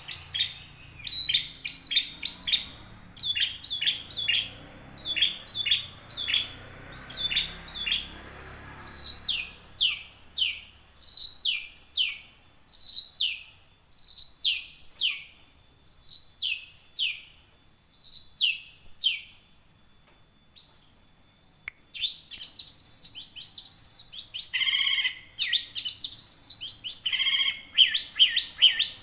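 Long-tailed shrike (cendet) singing in long runs of short, sharp notes, each sliding downward, several a second. A brief pause about two-thirds of the way through gives way to a denser, more varied chatter.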